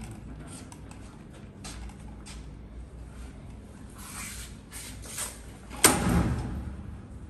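Faint clicks and handling noise, then one loud, sharp clack about six seconds in that rumbles away over about a second.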